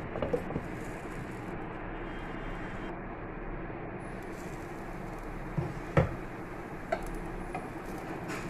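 A glass pan lid with a plastic knob is set down on a nonstick frying pan with a few light clinks. About six seconds in it knocks against the pan rim as it is lifted off, with a last small click after. A steady hiss runs underneath.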